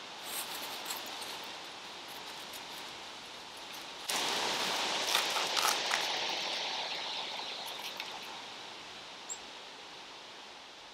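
Breeze rustling the leaves of the trees, swelling suddenly about four seconds in and slowly dying away, with a few faint clicks.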